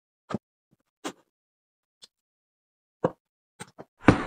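A series of short pop sound effects, roughly one a second, each marking a tool popping into the tote's pockets. The last and loudest, near the end, trails off in a brief rustle.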